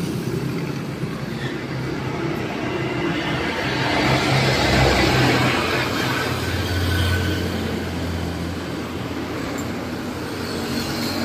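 Road traffic passing on a wet street: motorcycle tricycles, a jeepney and cars driving by, with the engine and tyre noise loudest about five seconds in as a vehicle passes close, then a low engine drone for a few seconds.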